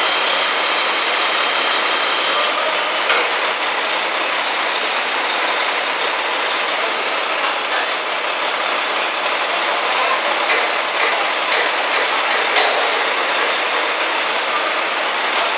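Truck-mounted knuckle-boom crane at work: the truck's engine and crane hydraulics make a steady mechanical noise as a load is lifted. A faint high whine fades out about two seconds in, and there are two sharp metallic knocks, one about three seconds in and one near the end.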